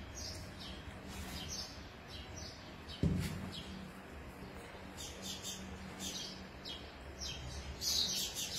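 Small birds chirping in short repeated calls, more of them in the second half, over a low steady hum. A single knock sounds about three seconds in.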